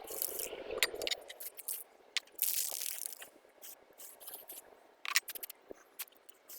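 Handling noise: scattered light clicks and clinks, with a brief scraping rustle about two and a half seconds in and a sharper click near the end.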